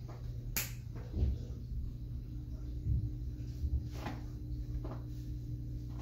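Plastic Lego pieces being handled and pressed together: a few scattered light clicks and knocks over a steady low hum.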